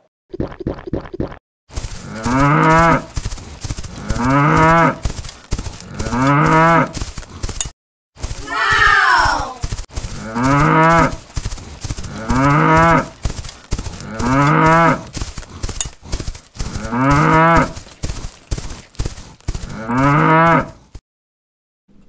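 Cow mooing, one long moo about every two seconds over and over, with quick clicking underneath; about nine seconds in, one moo slides down in pitch. It stops a second before the end.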